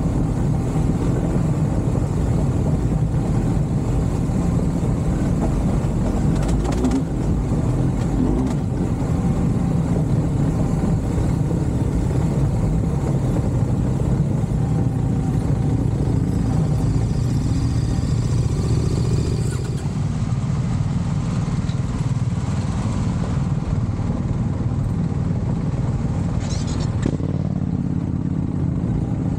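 A motor vehicle running steadily on the move, with constant low engine and road noise.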